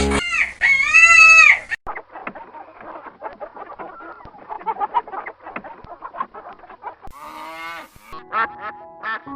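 A rooster crows once, then hens cluck busily, with a few short sharp calls near the end.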